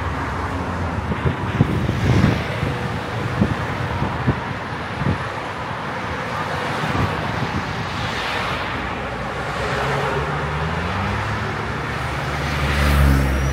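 City street traffic, with cars driving past, a few short knocks in the first few seconds, a vehicle speeding up with a rising engine note about ten seconds in, and a louder low rumble from a passing vehicle near the end.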